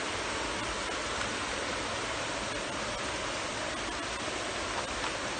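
Shallow stream water rushing steadily over rocks, a constant even rush of flowing water.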